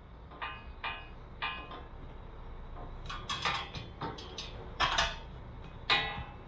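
Metal bull bar parts clinking and knocking together as they are fitted by hand: a few light clinks, then a busier run of metallic knocks, the two loudest near the end.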